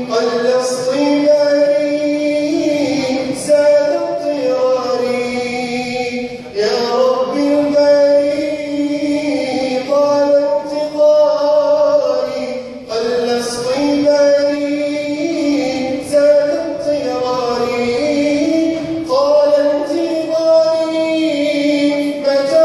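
Male voice singing an Arabic nasheed in long melodic phrases, breaking for breath about every six seconds.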